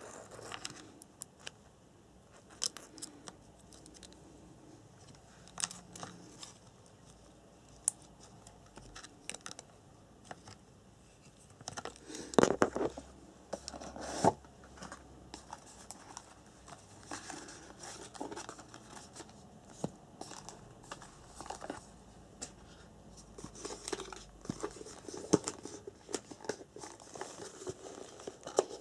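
Hands handling wires and plastic parts on an RC buggy chassis while an electronic speed controller is fitted: scattered small clicks, knocks and rustles, busiest around the middle.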